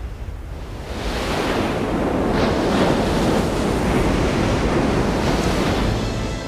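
Ocean surf breaking and rushing over a flat rock shelf, swelling about a second in and easing near the end, with a low wind rumble underneath.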